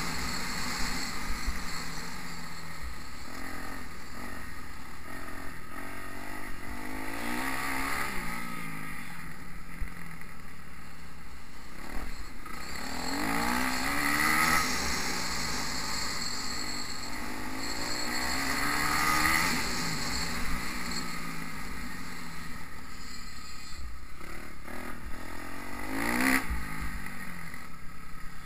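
Motocross bike's engine, heard from on board, revving up in repeated rising sweeps as it accelerates down the straights and dropping back between them, with a steady rush of wind noise.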